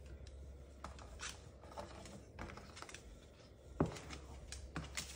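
Moluccan cockatoo's claws tapping on a hardwood floor as it struts along: faint, irregular clicks, one louder click about four seconds in.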